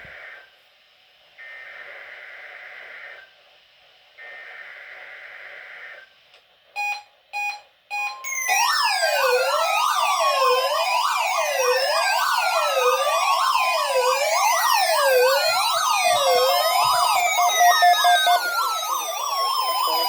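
Emergency alert tones. Three buzzy bursts of digital data tones, the alert's header codes, are followed by three short beeps. From about halfway through comes a loud warbling, siren-like alarm of many overlapping tones that sweep and fall in pitch.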